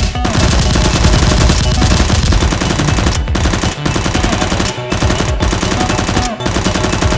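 Rapid automatic gunfire sound effect: long bursts of machine-gun fire with a few short breaks.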